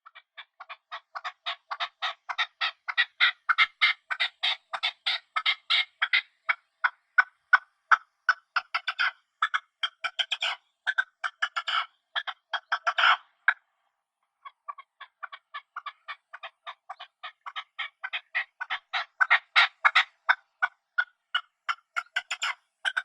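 Partridge calling in a fast run of short, repeated notes, several a second. The calling breaks off for about a second a little past halfway, then starts again.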